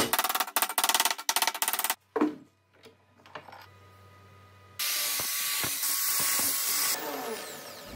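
A mallet striking an aluminium angle piece clamped in a bench vise, about five quick blows a second for the first two seconds, then one more blow. About five seconds in, an angle grinder with a flap disc grinds the aluminium edge, then its whine falls away as the disc spins down near the end.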